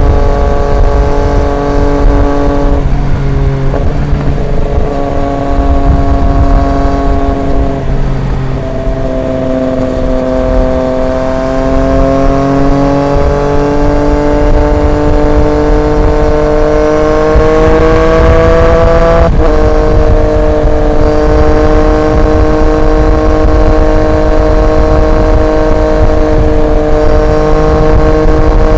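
Triumph Street Triple 765 RX's inline-three engine through an SC Project S1 exhaust, cruising on the road. The engine note climbs slowly under acceleration, then drops suddenly with a click at a gear change about two-thirds of the way through, and holds steady after that.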